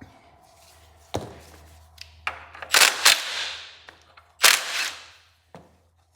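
Workshop tool and parts noise: a few sharp knocks, the later ones each followed by about half a second of noisy clatter, then quiet near the end.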